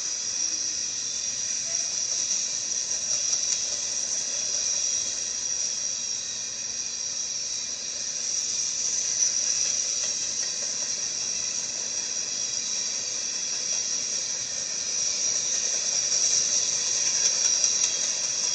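Freight train rolling past, picked up by a railcam microphone as a steady high hiss with no clear wheel clicks.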